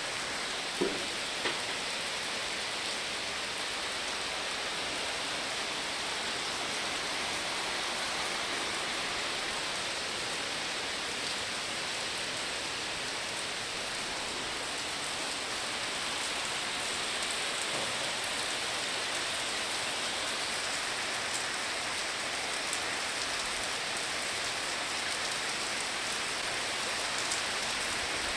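Steady rain, an even hiss throughout, with two small knocks about a second in.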